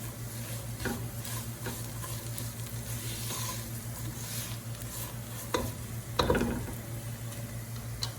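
A spoon stirring sheer khorma in a pot on the stove, with a sizzling, bubbling hiss and a few sharp knocks of the spoon against the pot. The loudest knocks come about six seconds in, over a steady low hum.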